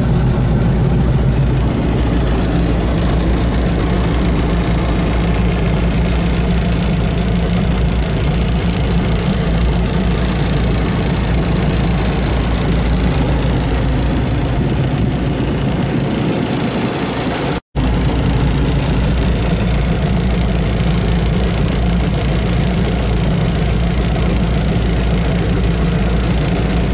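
John Deere 6420L tractor's four-cylinder turbodiesel idling steadily, heard from inside the cab. The sound cuts out for a split second about eighteen seconds in.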